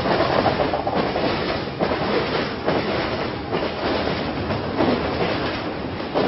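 A train running on rails: a steady rumble and rattle, with a wheel clatter about once a second.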